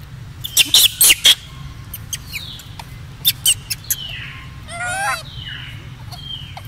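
Infant rhesus macaque squeaking and chirping: a quick run of four sharp squeaks about half a second in, more short squeaks and falling chirps through the middle, and a longer wavering squeal about five seconds in.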